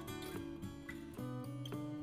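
Outro music with strummed acoustic guitar, changing chord about a second in.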